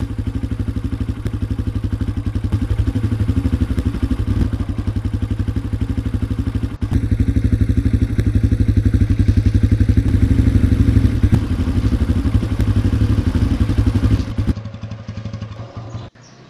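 Small commuter motorcycle's engine running steadily as it rides, a fast even throb. Near the end it drops much quieter as the bike slows.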